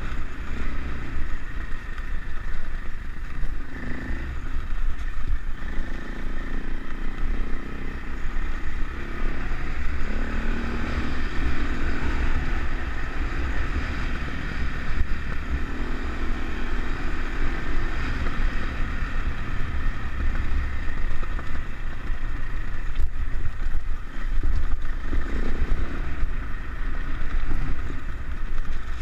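Trail bike engine running while riding a rough dirt track, its pitch rising and falling with the throttle several times, over a steady heavy low rumble.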